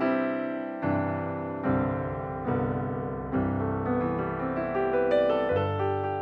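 Background piano music: slow, gentle notes and chords struck about once a second, each fading before the next.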